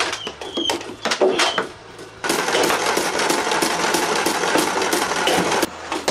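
Nerf Mega blaster firing darts, with a few single clicks at first. About two seconds in it starts a rapid full-auto stream of shots, roughly six a second, which stops shortly before the end.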